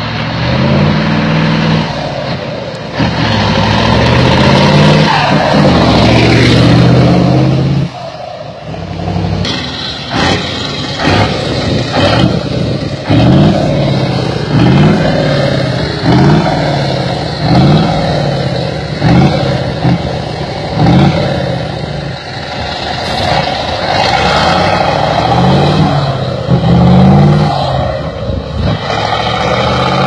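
Iveco TurboStar V8 diesel truck engines with open exhaust pipes accelerating hard, loud, the engine note climbing again and again. For the first several seconds come long rising pulls; after a short break, quick rises and drops about once a second follow.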